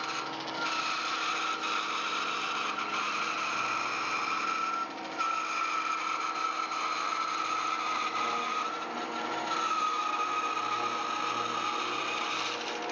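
Woodworking power saw running and cutting wood: a steady high whine over a noisy wash, dropping briefly about five seconds in and sagging slightly in pitch under load.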